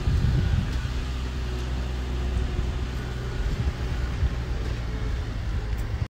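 Heavy earthmoving machinery's diesel engine running steadily with a deep, even hum.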